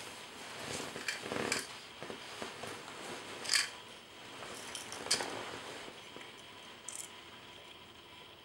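Small objects being handled and shuffled, giving a few short rustles and light scrapes, the sharpest about three and a half and five seconds in.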